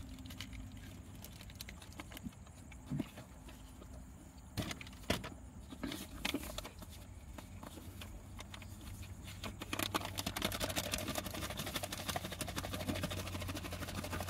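Crinkling and rustling of a paper sandwich wrapper with scattered soft clicks as the sandwich is handled and eaten, the rustle growing denser about ten seconds in, over a steady low hum inside the car.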